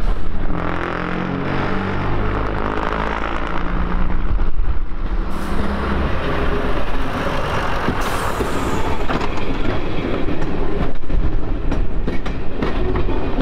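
A heritage diesel multiple unit running: its diesel engine note changes pitch in steps over the first few seconds, then it rumbles along the track with scattered clicks.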